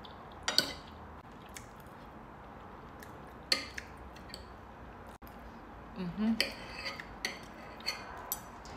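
Cutlery clinking and scraping against a plate in scattered sharp strikes: one about half a second in, another around three and a half seconds, then a quicker run of clinks over the last few seconds.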